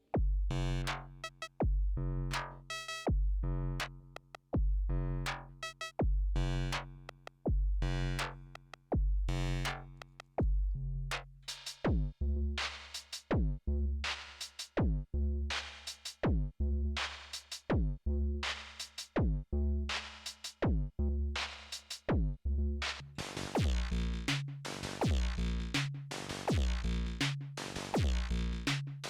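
Erica Synths Perkons drum machine playing a looping pattern of percussion-and-synth sounds: deep pitched bass hits, clicks and ringing metallic tones. From about 23 seconds in the pattern turns busier, with a hissier, denser texture.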